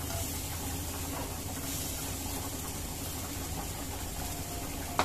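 Kitchen cooking sounds as sliced shallots are dropped into a pan of garlic for a baghar: a steady low hum with a faint even hiss. One sharp click near the end.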